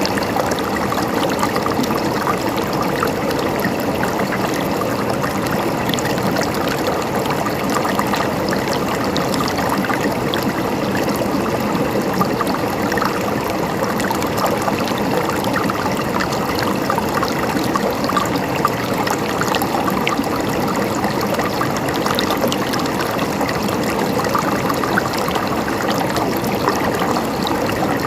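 River water flowing and splashing over rocks, a steady rush with many small trickles and splashes.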